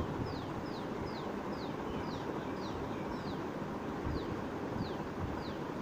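A small bird chirping over and over, short high notes that fall in pitch, about two a second with a brief pause in the middle, over a steady rushing noise.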